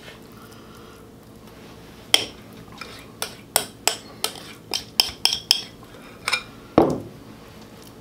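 A metal spoon knocking and scraping against a glass mixing bowl: a dozen or so sharp clinks at irregular intervals from about two seconds in, the last one heavier.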